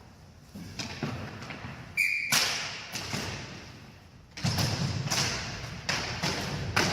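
Ball hockey play in a large hall: irregular knocks and thuds of the ball and sticks hitting each other and the boards, with a brief high squeak about two seconds in.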